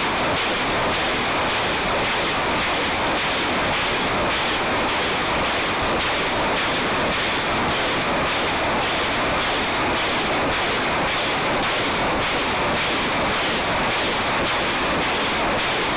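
BM-21 Grad multiple rocket launcher firing a salvo of 122 mm rockets, launches following one another about twice a second and running together into a continuous loud rushing noise.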